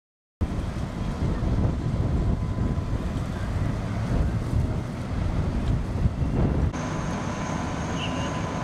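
Low rumble of idling fire engines with wind buffeting the microphone, starting suddenly after a moment of silence. A faint steady high tone joins about two-thirds of the way through.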